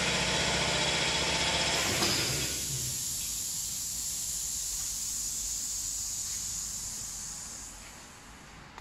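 Automatic wood-door spray-painting machine running: a steady mechanical hum with a hiss of air. The hum cuts out about two seconds in, and the high hiss fades away near the end.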